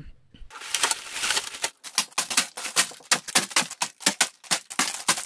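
LEGO set being unboxed: plastic bags of bricks crinkling and clattering in a rapid run of sharp clicks and rustles, starting about half a second in.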